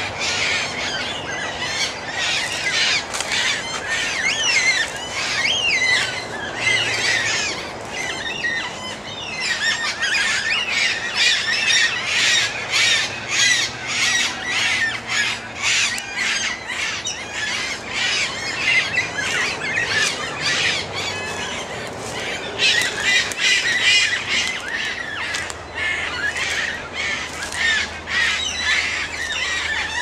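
A flock of birds squawking and screeching, with many short harsh calls overlapping almost without a break; the calls thin out briefly about a third of the way in.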